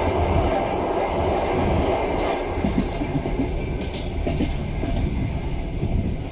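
Railway train running along the track: a steady rumble with the clatter of the wheels over the rails.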